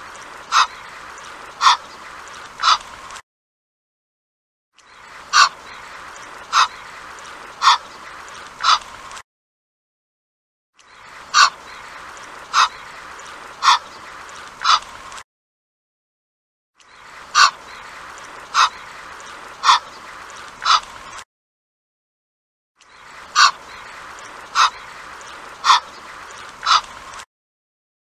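Egyptian goose calling: sets of four short, sharp honks about a second apart, the first loudest, over a steady hiss. The same short recording repeats about every six seconds with silent gaps between.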